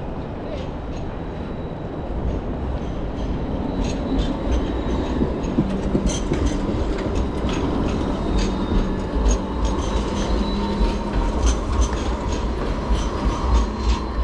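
Sydney light rail tram passing close by, a low rolling rumble that grows louder about two seconds in, with a steady electric whine and a run of short clicks from the wheels on the street rails.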